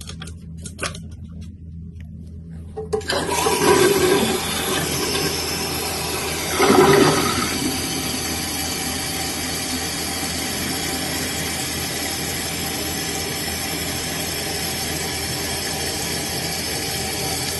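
Toilet flushing, with a sudden rush of water starting about three seconds in and surging once more a few seconds later. The tank then refills with a steady hiss of water through the newly fitted valve. A few light clicks come before the flush.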